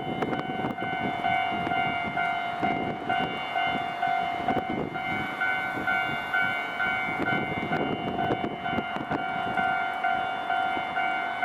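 Japanese railway level crossing warning bell ringing in a steady, evenly repeating ding-ding, over a rough, uneven background noise.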